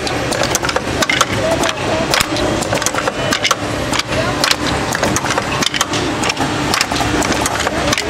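Automatic assembly machine for wooden toy train rails running: a steady mechanical hum under frequent, irregular sharp clicks and clatter as the wooden rails and connectors are fed and pushed through.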